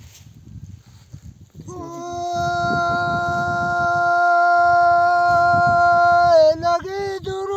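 An elderly man singing a Pahari folk verse (doha) unaccompanied. After a couple of seconds of low rumbling noise, his voice enters and holds one long, steady, high note for about four seconds, then breaks into wavering, ornamented turns near the end.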